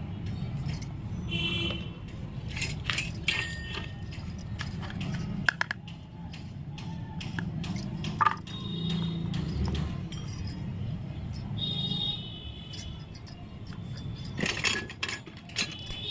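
Miniature toy kitchen pieces, small plastic and steel items, being handled and set down on concrete, giving scattered light clicks and clinks.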